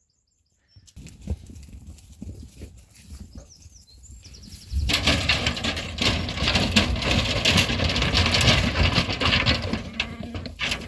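A batch of lambs on the move and jostling close together, their hooves pattering and knocking, growing suddenly loud about five seconds in after quiet rustling.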